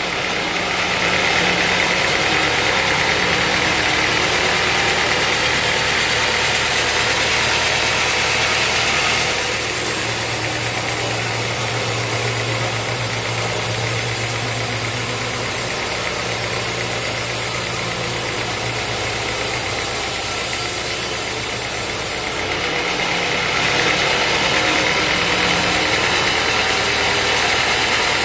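Sawmill machinery running steadily: a constant mechanical drone with a low hum, changing in character about nine seconds in and again a little after twenty seconds.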